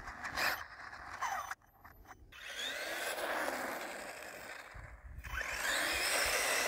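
Traxxas E-Revo RC truck driving on rough asphalt: the scraping hiss of its tyres, with the brushless motor's whine rising and falling. The sound drops out briefly twice.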